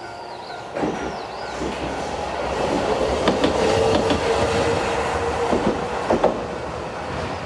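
Hankai Tramway streetcar passing over a level crossing: its wheels knock over the rail joints and a steady tone rises and falls as it goes by. The crossing bell's clanging stops about two seconds in.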